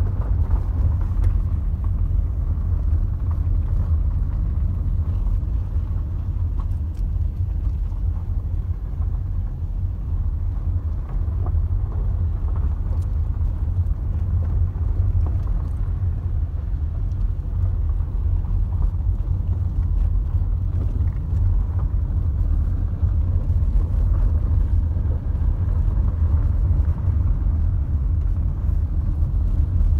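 Steady low rumble of a car driving on an unpaved gravel road, engine and tyre noise heard from inside the cabin.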